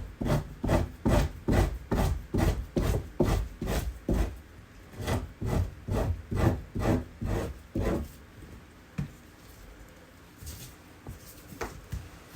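Blade scraping an otter hide in quick, even strokes, about three a second, taking meat off the skin. The run stops about eight seconds in, and a few single scrapes follow.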